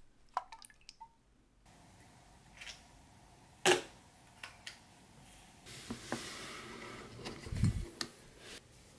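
Close, quiet handling sounds on a desk: two small glassy clinks as a glass jar is tipped, then a sharp click from a camera being handled, a few lighter clicks and rustling, and a click near the end as a memory card is pushed into the slot of a USB hub.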